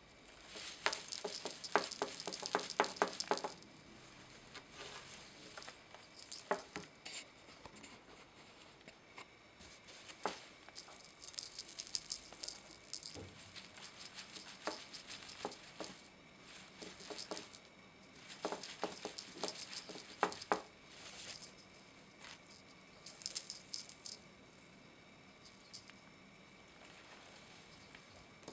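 A cat toy being shaken, jingling and rattling in bursts of one to three seconds, several times, with quiet gaps between.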